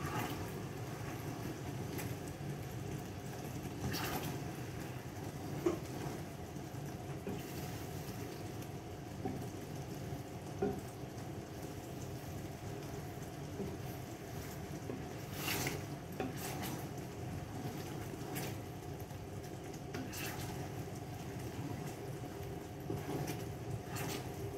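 A pan of biko mixture simmering and bubbling on the stove over a steady hum, with a few faint clicks and taps scattered through.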